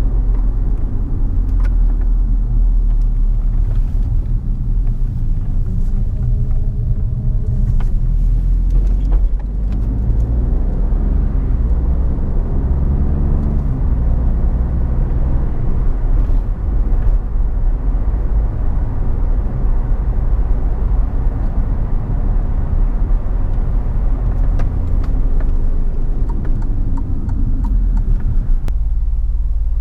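Alfa Romeo Giulia Quadrifoglio's 2.9-litre twin-turbo V6 on its stock exhaust, heard from inside the cabin while driving: a steady low drone with road noise, the engine note rising and falling a few times around the middle.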